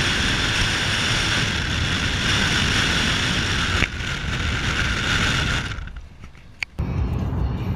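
Steady wind and tyre noise from a Chevrolet D-Max pickup driving at road speed, with wind rushing over the microphone. Near the end it cuts out for about a second, there is a single click, and then a deeper rumble starts.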